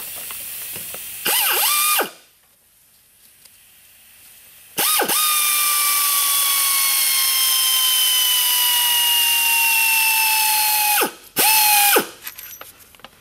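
Pneumatic air ratchet spinning out the Allen bolts of a hydraulic pump regulator: a short run about a second in, then a long run of about six seconds with a whine that slowly falls in pitch, then two short bursts near the end.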